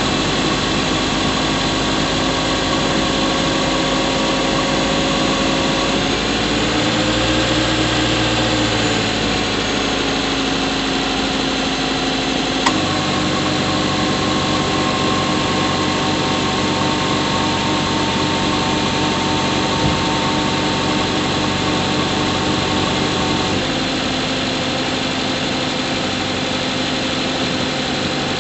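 Subaru Levorg 1.6GT-S's turbocharged 1.6-litre flat-four running, heard from inside the engine bay near the intake. Its pitch steps up and down a few times, with a brief rise and fall about six seconds in and a single sharp click about halfway through.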